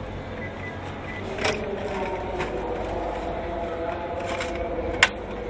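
Papers and lottery slips handled on a shop counter, with a sharp click about a second and a half in and a louder one near the end, over faint voices in the background.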